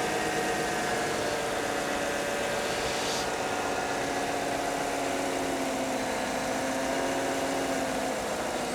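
Chevrolet Silverado pickup's engine idling steadily. It runs smoothly, with no coolant leaks after the used radiators were fitted and the coolant filled.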